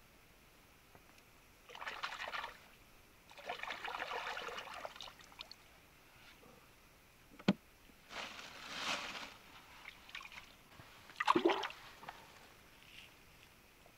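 Lake water sloshing and trickling in several short bouts, as hands work in the shallows at the rocky shore. There is a single sharp knock about halfway through, and the loudest splash comes near the end.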